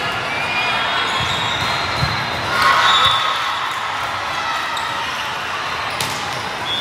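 Indoor volleyball rally: the ball is struck with hollow thumps and sneakers squeak on the sport court, over a steady din of crowd chatter in a large hall. It is loudest about two and a half seconds in.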